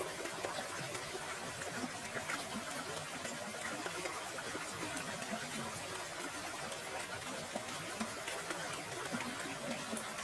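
Steady rushing of falling water, a waterfall ambience, even and unbroken.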